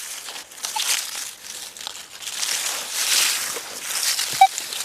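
Minelab Manticore metal detector giving two short beeps from its speaker, about a second in and near the end, over a steady rustling hiss that swells in the middle as the coil is swept over iron-laden ground.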